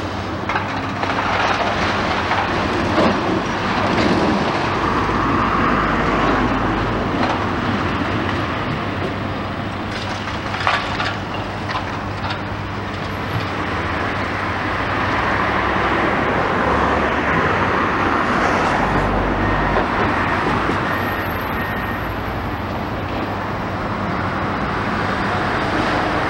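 Komatsu high-reach demolition excavator running steadily while its hydraulic crusher jaws bite into a brick wall, with cracks and clatter of breaking brick and falling rubble, a cluster of them about ten seconds in.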